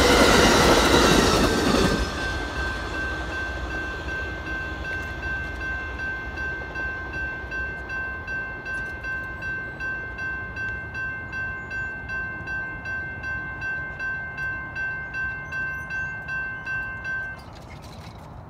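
The last cars of Amtrak's Coast Starlight passenger train rolling over the crossing for about two seconds. Then the railroad crossing bell rings steadily about twice a second while the gates rise, and it stops suddenly near the end as the crossing clears.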